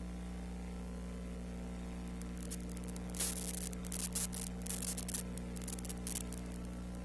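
Steady electrical mains hum with a constant hiss, the background noise of a silent archival film transfer, with bursts of crackling static from about two and a half seconds in until about six seconds in.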